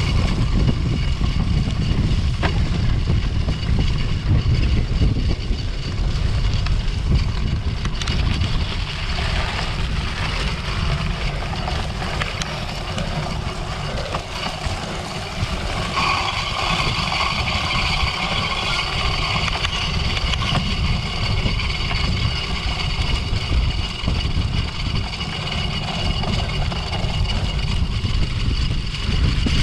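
Wind rumbling on the microphone of a camera riding along with a cyclocross bike, together with the bike's rumble and rattle over rough race ground.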